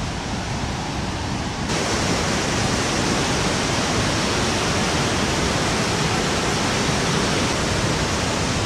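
Steady rush of a rocky river running as white water over boulders; it jumps louder about two seconds in and then holds level.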